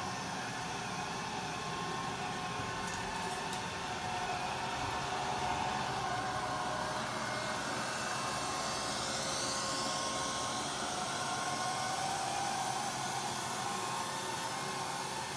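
Neato robot vacuum running with a steady whir, its pitch drifting slightly up and down.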